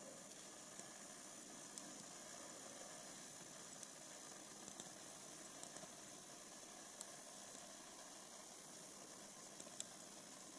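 Near silence: a faint, steady hiss with a few soft, scattered ticks.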